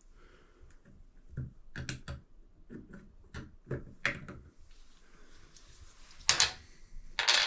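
A series of light clicks and knocks, with two louder, longer clattering noises near the end.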